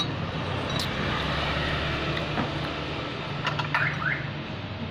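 Steady low hum of a running vehicle engine nearby, with a few short clicks and brief chirps over it.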